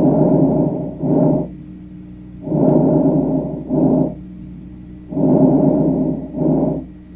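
Lung breath sounds as heard through a stethoscope: three breaths, each a longer noisy sound followed after a brief gap by a shorter one, then a pause before the next.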